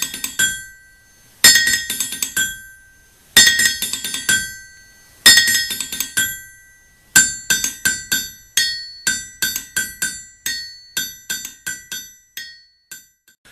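A bright metal object ringing as it is struck over and over at the same pitch: four quick clusters of strikes about two seconds apart, then a run of single strikes that grow quieter.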